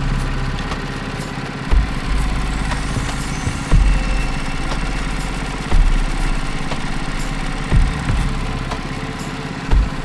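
Portable band sawmill's Kohler gas engine idling steadily, with a brief low surge in loudness about every two seconds.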